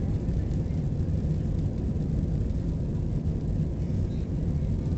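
Steady low rumble of an Airbus A320-214's CFM56 engines and the rushing air, heard inside the passenger cabin as the airliner climbs after takeoff.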